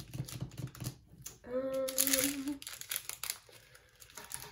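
Clear plastic bags of diamond painting drills crinkling as they are handled. About a second and a half in, a short steady hum of the voice, a thinking "hmm".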